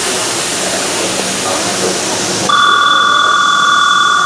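A station's electric departure bell starts ringing suddenly about two and a half seconds in, loud and steady, signalling that the stopped train is about to close its doors and leave. Before it, a steady hiss.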